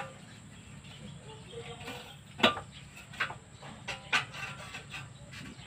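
A few sharp metallic clacks, the loudest about two and a half seconds in and two more at roughly one-second intervals after it, as an aluminium window profile is handled and seated in a hand-operated punch press.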